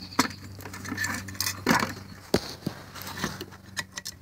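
Aluminum pieces from a dismantled satellite dish receiver clinking and tapping against each other as they are handled, a handful of separate sharp clicks, over a steady low hum.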